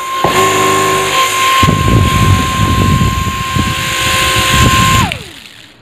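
Flynova Pro flying spinner ball's propeller motor running with a steady high whine and a rough low rumble, then winding down in pitch and stopping about five seconds in as it is switched off.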